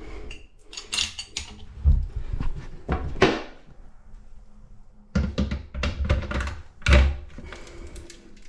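Toilet seat being rocked and knocked against the pan, a handful of dull thunks, the loudest about two seconds in and near the end, as the freshly tightened top-fixing seat is tested for play.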